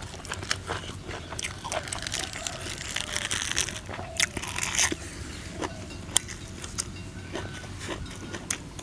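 Close-up crunching and chewing of a crisp raw cabbage leaf: a run of crisp bites and crackles, thickest from about one and a half to five seconds in.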